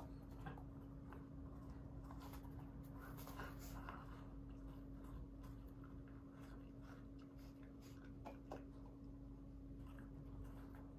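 Faint rustling, scratching and small clicks as a black puppy nudges and mouths a red apple on a paper puppy pad, busiest about two to four seconds in. A steady low electrical hum runs underneath.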